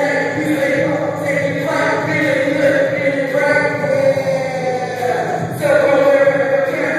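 Several voices singing together in long held notes, moving to new notes every second or two.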